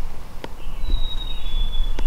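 A songbird's clear two-note whistle, the first note high and the second slightly lower, over a low rumble on the microphone, with a sharp click about half a second in.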